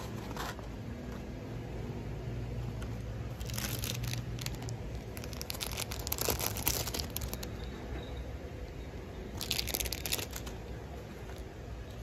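Clear plastic packaging of a hair-remover kit crinkling as hands handle it and pull paper strips from a plastic bag. It comes in three bouts, about four, six and ten seconds in, over a low steady hum.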